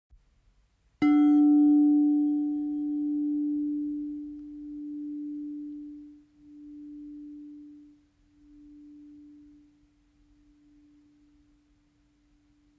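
A singing bowl struck once, about a second in, ringing out in one low tone that fades slowly over about ten seconds with a regular pulsing wobble.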